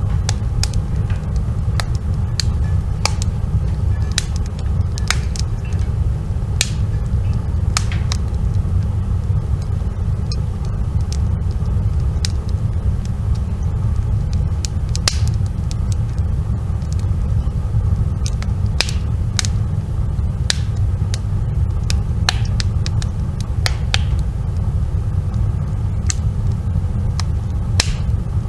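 Wood fire burning: a steady low rumble with irregular sharp crackles and pops from the burning wood.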